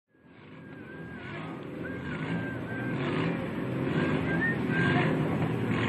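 Several autocross saloon-car engines running together on the starting grid, fading in from silence at the start, with a wavering high whistle over them.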